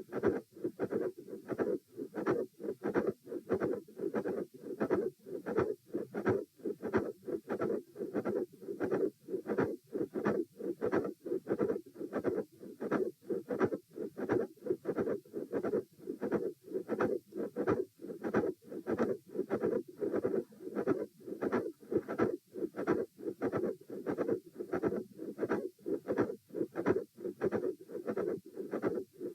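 Heartbeat heard through a stethoscope at Erb's point: a fast, regular run of paired lub-dub beats. The uploader labels it as a midsystolic click and murmur with a fixed split second heart sound.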